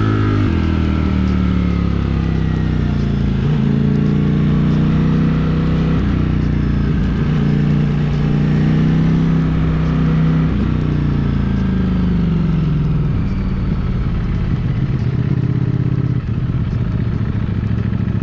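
Ducati Streetfighter V4's 1103 cc V4 engine heard from the bike while riding. The revs drop at first, climb and hold steady, then fall away again. Near the end it settles into a lower, uneven rumble.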